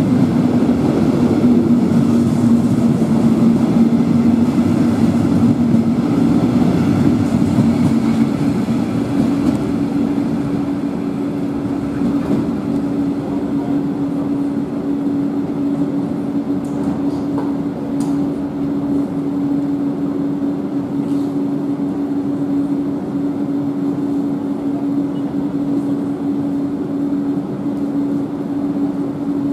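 Metronom double-deck electric regional train running through the station: a steady rumble with an even electric hum, which sits a little higher from about nine seconds in.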